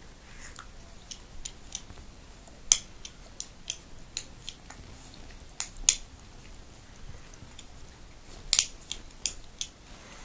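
A pit bull's mouth making scattered sharp, wet clicks and smacks at close range, with three much louder snaps spread a few seconds apart.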